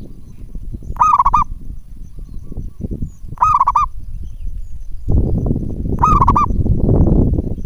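Zebra dove (local Javanese perkutut) cooing: three short, warbling coos about two and a half seconds apart. Under them runs a low rumbling noise that grows louder about two thirds of the way through.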